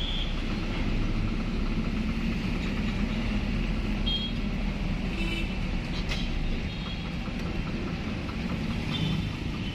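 Engine and road noise of a moving van, heard from inside the cab: a steady low rumble.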